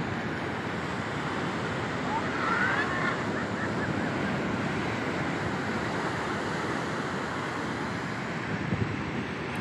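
Sea surf breaking and washing up a sand beach: a steady rush of waves. A faint short rising call sounds about two seconds in.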